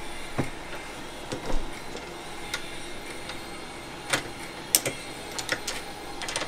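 Scattered sharp metallic clicks and knocks from a tube-flaring tool clamped in a bench vise, being worked and adjusted on 3/8-inch steel fuel line, about eight at irregular intervals.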